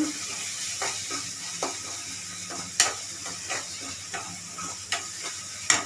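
Onions and ginger-garlic paste sizzling in hot oil in a kadai, with a spatula knocking against the pan about half a dozen times as it is stirred; the paste is being fried to cook off its raw smell.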